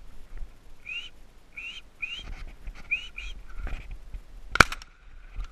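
Short rising whistled chirps repeated about twice a second, like a thrush call blown to draw song thrushes, then a single shotgun shot about four and a half seconds in.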